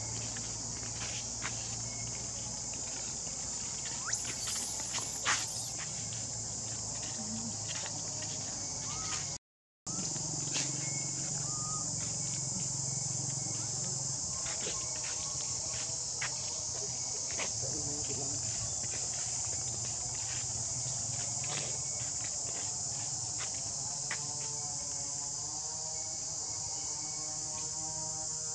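Steady high-pitched insect buzzing, with scattered light clicks and rustles; the sound cuts out completely for about half a second around nine seconds in.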